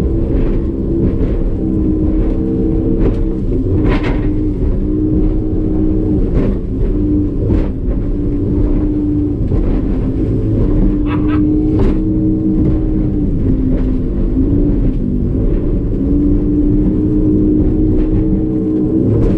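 Evinrude E-Tec 150 two-stroke direct-injection outboard running hard at racing speed: a loud, steady drone whose pitch dips briefly a couple of times. Occasional thumps and splashes are heard over it.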